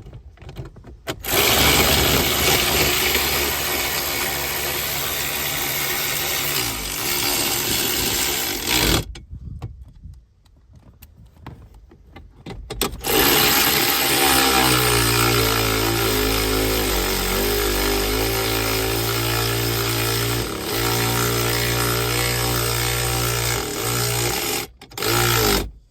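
Cordless drill/driver running in two long runs with a short pause between, its motor pitch shifting a little under load, then a brief final burst near the end: driving screws back in during reassembly.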